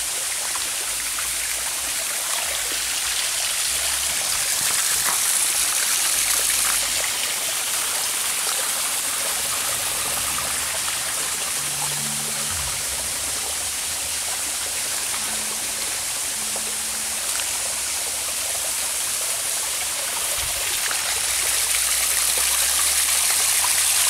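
Small waterfall spilling in thin streams over layered rock ledges into a shallow creek: a steady splashing hiss, growing a little louder near the end.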